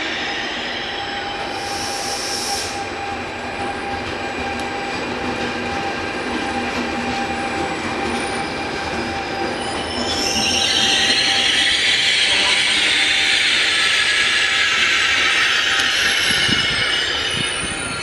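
Train hauled by Trenitalia E464 electric locomotives running slowly as it arrives at a station, with a steady whine. From about ten seconds in, a loud, high squeal from the wheels sets in as it brakes, lasting about seven seconds. There is a brief hiss about two seconds in.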